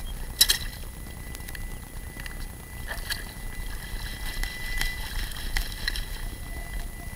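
Perforated metal sand scoop knocking against a floating sifter as it is emptied, with one sharp clack about half a second in, then scattered clinks of gravel and shells on the sifter's mesh as it is worked in the water.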